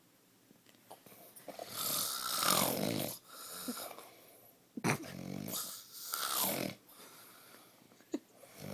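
A man snoring in his sleep: two long, rasping snores, each lasting a second and a half to two seconds, a few seconds apart, with quieter breathing between them.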